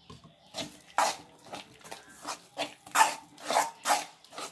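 Metal spoon scraping and stirring thick gram-flour batter in a metal bowl, in a run of separate scraping strokes. The strokes are loudest around three to four seconds in. The flour and water are being worked into a smooth batter.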